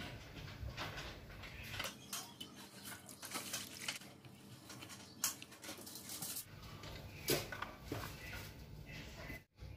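Brewed tea poured from a glass kettle through a stainless-steel mesh strainer into a cup, with splashing liquid and small clicks for a few seconds, followed by a couple of sharp taps.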